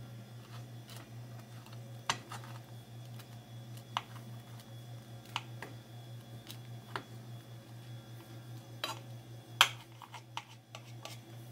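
Knife tapping and clicking against a plate while cutting through a toasted grilled cheese sandwich: a series of sharp clicks a second or two apart, the loudest about three-quarters of the way in. A steady low hum runs underneath.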